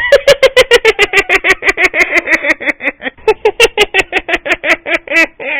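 A cartoon character's voice chattering in very fast, evenly spaced syllables, about eight a second, too quick to make out as words.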